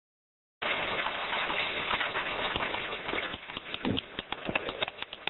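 Silence that cuts to steady outdoor hiss about half a second in, with a run of irregular clicks and taps, thickest about four seconds in.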